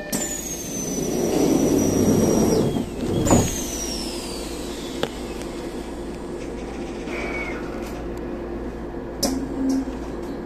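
Shinano Railway train's doors closing at a station stop: a rush of compressed air with high, falling whistles, then a heavy thud about three seconds in as the doors shut, followed by the standing train's steady hum.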